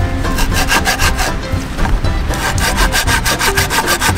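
Hand saw cutting through a dry driftwood log in quick, even back-and-forth strokes, several a second. The wood is dry and soft, hollow inside, so the blade cuts easily.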